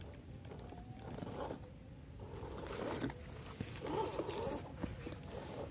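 RGT EX86100 V2 1/10-scale RC crawler's electric motor and gears whining in uneven bursts of throttle, loudest about three and four seconds in, as it climbs over wet mud and rock, with scrabbling and clicking from the tyres.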